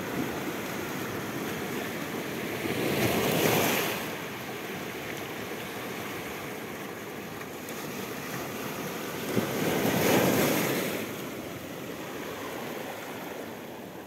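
Sea surf on a pebble and rock shore: small waves breaking and washing in over the stones, with two larger waves swelling up about three seconds in and again about ten seconds in.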